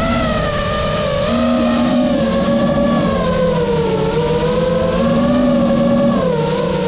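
Brushless motors and propellers of a GEPRC Mark 5 FPV freestyle quadcopter in flight, a loud whine that rises and falls in pitch with the throttle.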